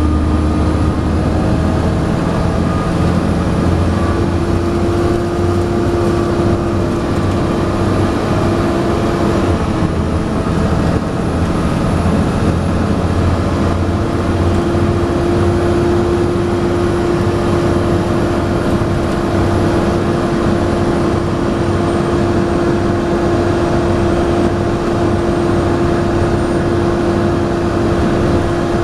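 Volvo B7TL double-decker bus driven hard, heard on board: loud engine drone under load with a steady whining tone that bus enthusiasts call 'hoovering'. The pitch steps slightly about ten seconds in and dips again a little after twenty seconds.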